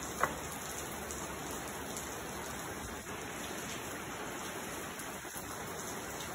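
Steady rain falling, an even hiss of drops. A single short click sounds about a quarter of a second in.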